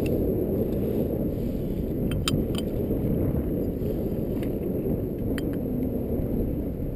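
Wind rumbling on the microphone of a head-worn camera as the wearer walks through dry grass, with a few faint clicks about two seconds in and again past the five-second mark.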